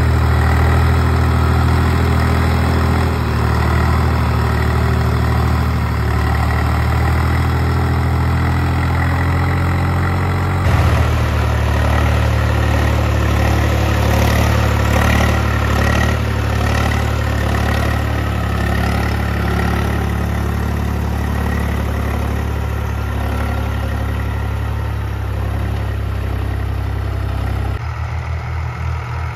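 Swaraj 735 FE tractor's three-cylinder diesel engine running steadily while it works a field with a rear tillage implement. The sound changes abruptly about a third of the way in, and near the end it becomes quieter with a pulsing beat.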